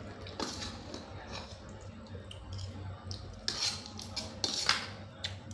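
Blood cockle shells and tableware clicking and clinking as the cockles are handled and opened for eating, with two louder noisy sounds near the end.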